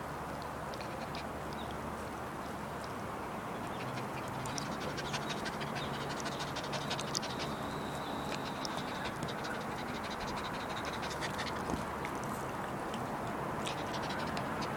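Small terrier-mix dogs panting after a walk, with scattered light clicks over the breathing.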